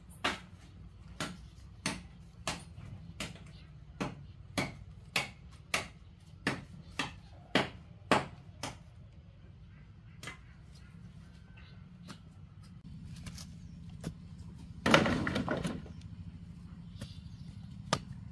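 Steady run of sharp tool strikes, about one every two-thirds of a second, for the first nine seconds, as in building work on a chicken coop. A few single knocks follow, then a louder rough noise about a second long near the end.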